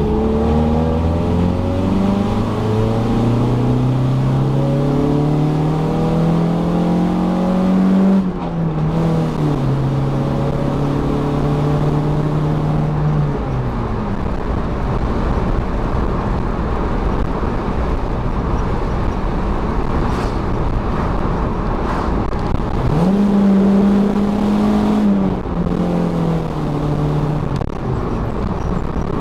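1993 Honda Civic hatchback engine pulling under acceleration. Its pitch climbs for about eight seconds, drops sharply at an upshift, holds steady, then eases off. It pulls up again briefly before another shift near the end.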